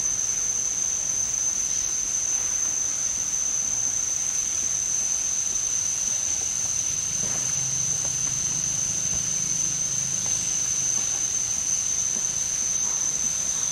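Insects in the forest keeping up a steady, high-pitched drone on one pitch, over a faint hiss.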